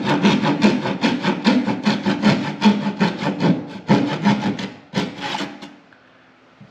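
A saw cutting through wood with quick, even strokes, about five a second, which stop about five and a half seconds in.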